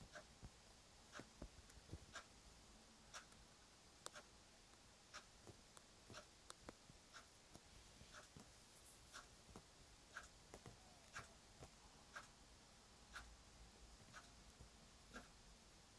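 Near silence in a small room, with faint, soft ticks coming evenly about once a second.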